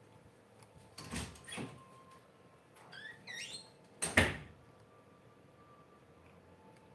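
Household noises off-camera: two knocks about a second in, a short run of high rising squeaks, then a louder bang just after the middle.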